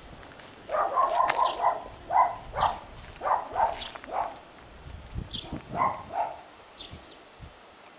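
Dog barking repeatedly: a quick run of barks about a second in, then separate barks, stopping about six seconds in.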